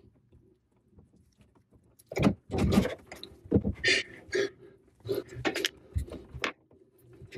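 Wire strippers working on the cooktop's wires: a run of irregular clicks, snips and scrapes as insulation is cut and pulled off and the wires are handled, starting about two seconds in.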